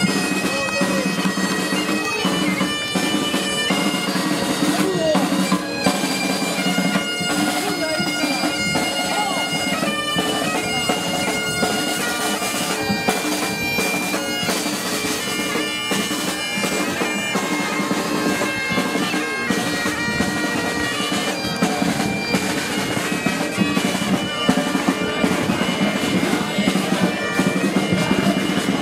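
A pipe band of Highland bagpipes plays a tune over its steady drones, with a drum beating time.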